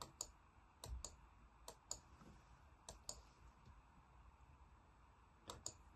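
Computer mouse clicking in quick pairs, five double-clicks with a second or so between them, over near silence.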